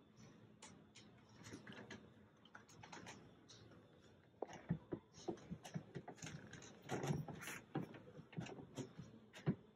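Scattered light clicks and knocks at an irregular pace. They grow denser and louder from about halfway in, with one sharp knock near the end.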